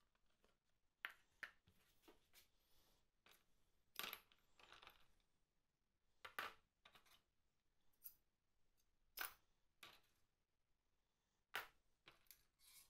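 Faint scattered clicks and clinks of handling: a plastic tub's lid being unclipped and lifted off, then pliers reaching into the liquid and picking out small steel parts, about a dozen sharp taps spread irregularly.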